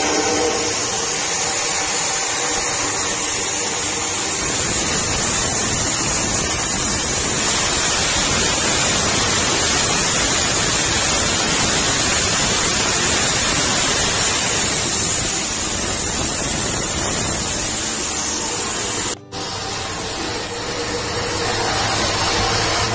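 Rice milling machine running with rice grains pouring through it: a loud, steady rushing hiss that drops out for an instant about nineteen seconds in.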